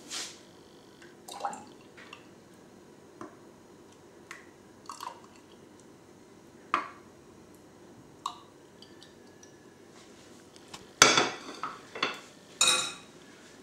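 Metal ladle clinking against a ceramic bowl and the rim of a drinking glass while tomato coulis is ladled into the glass, with liquid dripping. Scattered light clinks, then a quick run of louder knocks about eleven seconds in as the filled glass is set down on a plate.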